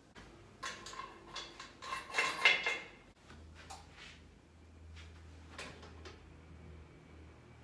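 Metal parts of a Teeter 900LX inversion table clattering and rattling as they are handled and fitted, in a burst of rattling loudest about two and a half seconds in, then a few lighter knocks.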